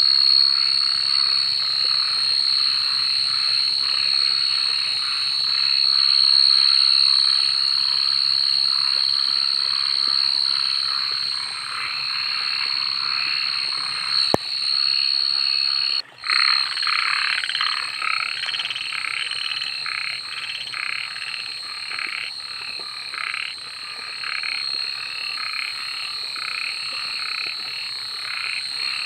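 A chorus of many frogs calling together, dense overlapping croaks, with a steady high-pitched tone behind them. About sixteen seconds in the sound drops out for an instant, and the chorus comes back denser and more pulsing.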